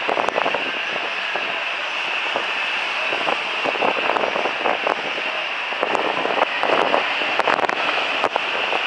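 Street traffic ambience from a busy multi-lane road: a steady hiss of passing cars, vans and a bus, with scattered short knocks and rattles.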